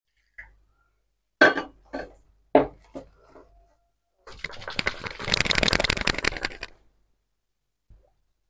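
Steel spoon knocking and scraping against a nonstick frying pan while stirring a thick tomato chutney paste: four or five sharp clacks, then a couple of seconds of fast, continuous scraping.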